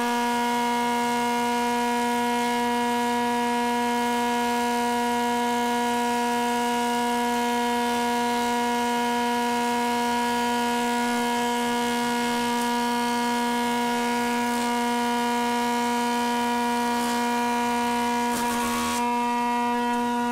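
13-inch JET benchtop thickness planer running with a steady, unchanging whine as a board feeds through it. A short rattle comes near the end.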